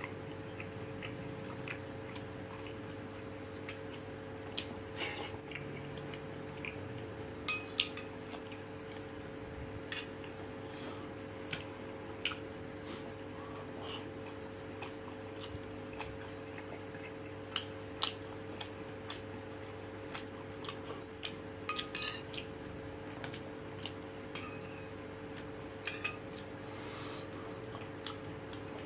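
Eating rice by hand from a plastic plate: scattered light clicks and taps of fingers scraping the plate, with chewing. A steady low hum runs underneath.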